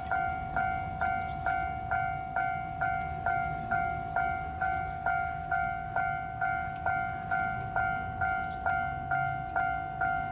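Japanese railway level-crossing warning bell ringing its 'kan-kan' alarm, a pitched stroke about twice a second that fades before the next, over a steady low rumble.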